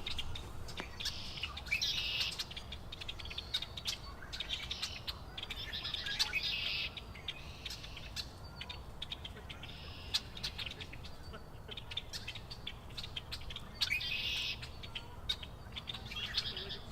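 Songbirds singing and calling: short, high, buzzy trills repeat every second or so in the first several seconds, then come again more sparsely, with scattered faint clicks.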